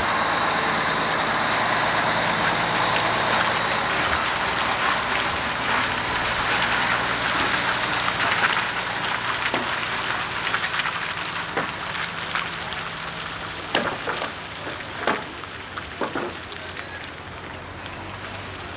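Heavy dump truck's diesel engine running as the truck rolls slowly on wet pavement, with a steady hiss over it; the sound fades steadily as the truck pulls away, and a few sharp knocks come in the second half.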